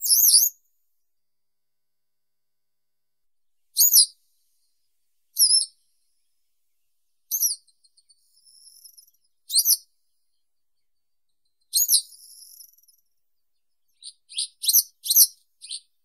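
Western yellow wagtail (Motacilla flava) singing: short high notes every one to two seconds, two of them followed by a faint buzzy trill, then a quicker run of short notes near the end.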